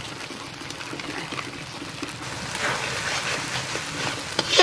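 Masala sizzling and crackling in a steel kadai as red chilli powder goes in, with one sharp click near the end.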